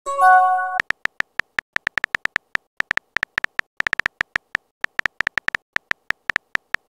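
Texting-app sound effects: a short chime of several steady tones as a message goes out, then a fast run of keyboard tap clicks, several a second, as the next message is typed. A rising swoop begins at the very end.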